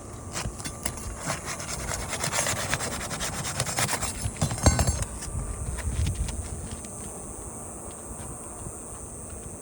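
Rubbing and scraping against asphalt roof shingles as they are handled, with a few light taps among it, strongest between about one and five seconds in.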